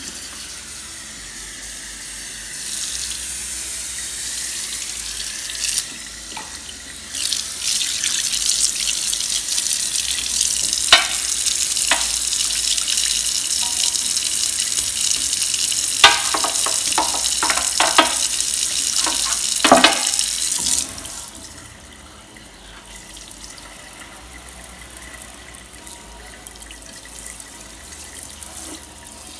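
Kitchen tap running into a cast iron sink to rinse off scouring powder, water splashing on the enamel basin, with a few sharp knocks in the middle stretch. About two-thirds of the way through the water noise drops sharply to a quieter flow.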